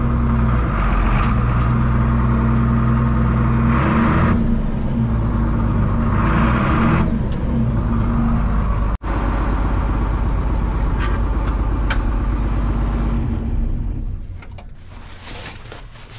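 John Deere 4630 tractor's six-cylinder diesel engine running, its speed shifting about four and again about six and a half seconds in, with brief hissing at those points, then fading away near the end.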